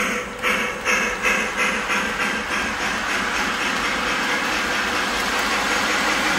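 Toy steam locomotive's onboard sound system playing steam chuffing, about two to three chuffs a second at first that blur into a steady hiss after about three seconds, over the rumble of the train running on O-gauge track.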